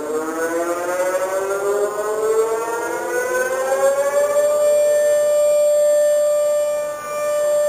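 Emergency alert siren wailing, rising slowly in pitch for about four and a half seconds and then holding one steady tone, with a brief dip in loudness near the end.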